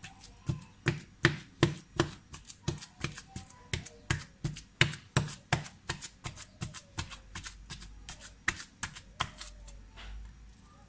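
A wooden masher pounds boiled potatoes into shredded chicken and chana dal in a metal pan, with about three sharp knocks a second. The strokes thin out near the end.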